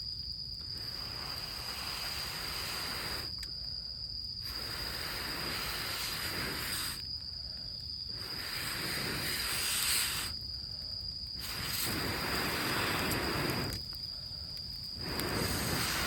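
Air blown hard and long into a campfire that is just catching, five long hissing blows with short pauses for breath between. A cricket's steady high trill runs underneath.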